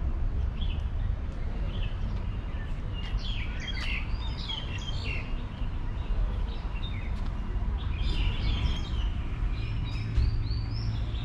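Several birds chirping and calling in short runs of quick notes, over a steady low rumble of background noise.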